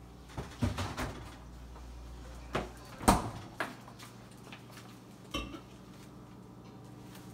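Kitchen items being handled on a counter: a handful of scattered knocks and clatters, the loudest about three seconds in, over a low steady hum.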